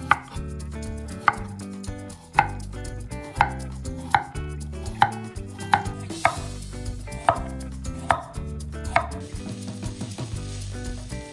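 A chef's knife slicing a carrot into rounds on an end-grain wooden cutting board: a sharp knock of the blade on the board roughly once a second, about eleven times. Near the end the chopping stops and onions sizzle in a frying pan.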